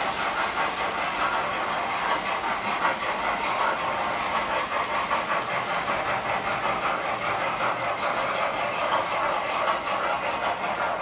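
Several model trains running at once on metal track: a steady whirring clatter of small wheels and motors rolling over rail joints.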